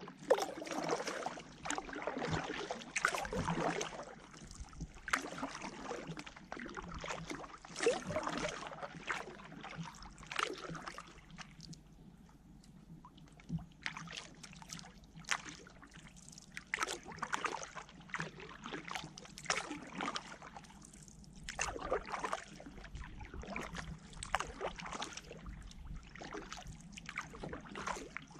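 Kayak paddle blades dipping into the water, an uneven run of splashes and swishes with drips in between.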